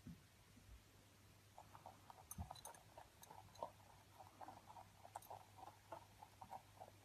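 Two rabbits munching food from a small bowl: a quick, irregular run of soft crunching clicks that starts about a second and a half in.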